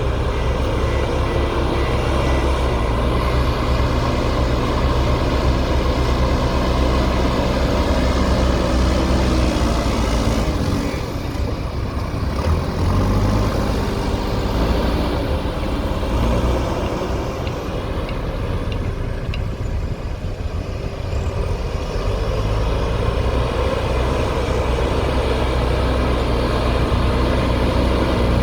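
JCB backhoe loader's diesel engine running steadily. Its pitch shifts up and down a few times, and it drops quieter twice in the middle.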